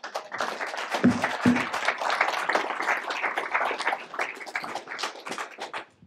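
Audience applauding, many hands clapping together, dying away in the last second.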